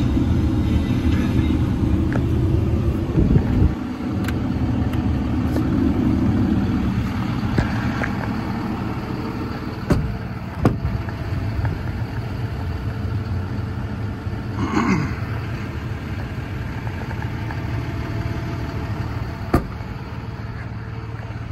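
Freightliner M2's 6.7 Cummins straight-six diesel running at idle, a steady low hum. A thump about three and a half seconds in, after which the engine sounds quieter, and a few sharp clicks later on.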